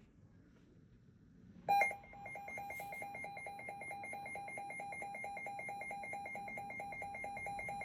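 Electronic weather alert tone starting abruptly about two seconds in with a brief louder burst, then a steady, rapidly pulsing two-pitch beep. It is the alarm that opens a severe thunderstorm warning broadcast.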